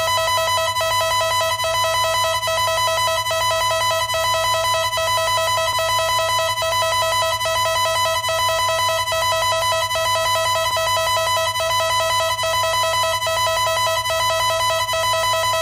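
Emergency alert system attention tone: a loud, steady alarm of several tones sounding together, held without a break.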